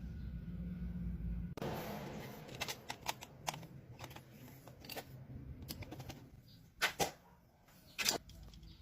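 A steady low hum that stops about a second and a half in, followed by irregular sharp clicks and taps, with two louder knocks near the end.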